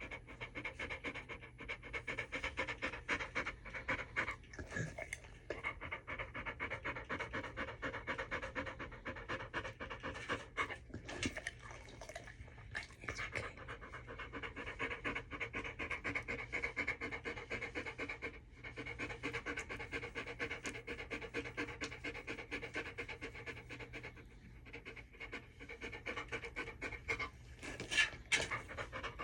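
Dog panting rapidly and without a break: anxious stress panting brought on by loud noises. A few brief clicks sound over it, the loudest near the end.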